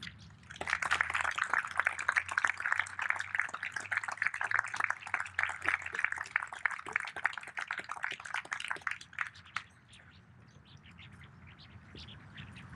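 Audience applauding, starting about half a second in after a poem ends and dying away after about nine seconds.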